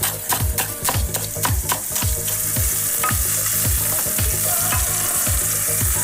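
Chef's knife chopping spring onions on a wooden cutting board in quick, even strokes, stopping about two seconds in. Then chopped onions sizzle steadily in hot olive oil.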